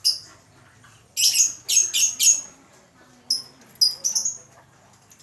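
Pet lovebird giving sharp, high-pitched chirps: one at the start, a quick run of about five a little over a second in, then a few more scattered near the end.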